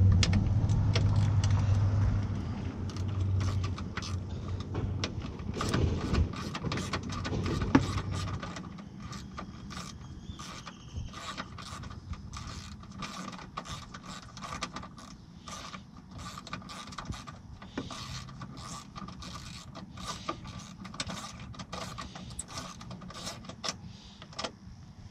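Hand ratchet clicking rapidly as it turns a headlight mounting bolt. A low vehicle rumble fills the first several seconds and fades out.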